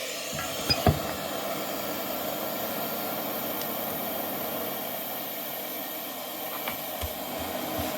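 ATTEN ST-862D hot air rework gun blowing steadily, its brushless fan and hot air stream making an even rushing hiss. A couple of light knocks about a second in and again near the end.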